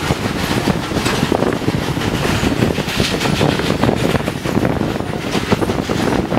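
Loud, steady running noise of a passenger coach behind a Baldwin 2-8-0 Consolidation steam locomotive: wheels rumbling and rattling over the rails with a stream of small irregular knocks.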